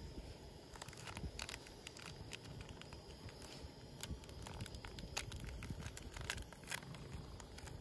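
Plastic coffee sachet crinkling and being torn open by hand, a run of short irregular crackles, over a low rumble.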